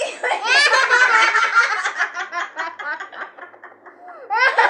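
People laughing: a loud burst of laughter, then rhythmic ha-ha pulses trailing off.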